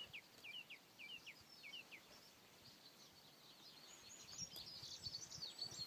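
Faint birdsong: a run of about six short falling chirps in the first two seconds, then a busier high twittering that builds from about halfway through.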